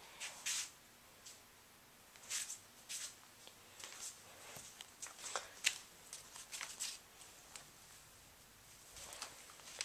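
Faint, scattered rustles and clicks of a phone being handled and moved about, with a few sharper ticks, the crispest about halfway through.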